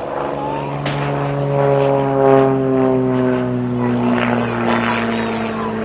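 Aviat Pitts S-2C aerobatic biplane's six-cylinder Lycoming engine and propeller droning in flight, the pitch slowly falling as it goes. A single sharp click about a second in.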